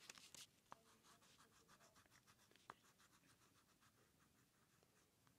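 Faint scratching of a wax crayon rubbed quickly back and forth on paper while colouring, about five strokes a second, with a few sharper ticks at the start, fading towards the end.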